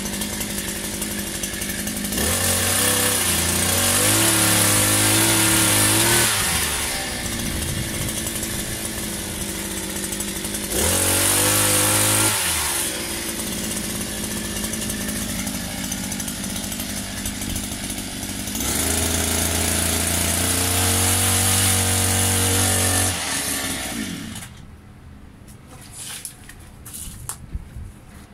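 Small petrol engine of a multi-tool with a pole chainsaw attachment idling, revved up three times for a few seconds each with the pitch rising and falling back, then shut off near the end, leaving only faint clicks and rustling.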